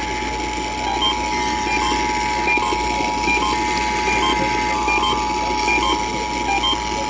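Emergency Alert System attention signal: two steady tones sounding together without a break, the alert over a radio broadcast that warns a voice message is about to follow, with a hiss of noise beneath.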